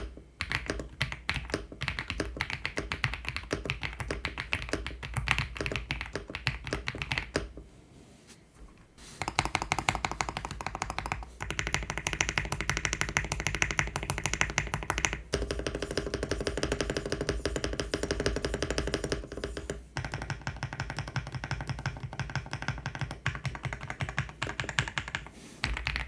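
Fast typing on a tape-modded Ajazz AK820 Max mechanical keyboard, a dense stream of key clicks that stops for about a second and a half a third of the way in, then resumes.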